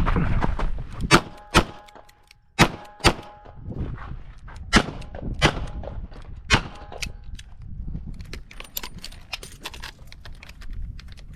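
Smith & Wesson 929 revolver firing .38 Short Colt in a rapid string of shots, about seven loud reports in the first seven seconds, with steel targets ringing after several of them. Quieter clicks and knocks follow in the later seconds.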